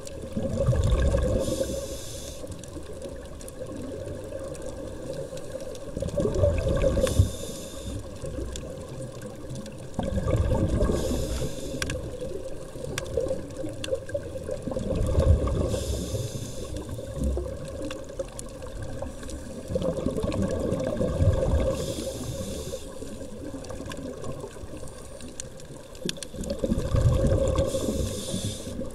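A scuba diver breathing through a regulator underwater: about six breaths, roughly every five seconds, each a loud burst of bubbling exhaust with a short hiss of air.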